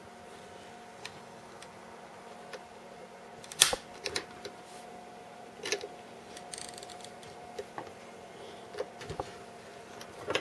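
Scattered clicks and knocks from a small bench vise being tightened on a plastic USB power-adapter case, with the sharpest, loudest snap a little over three and a half seconds in. The case is resisting being cracked open.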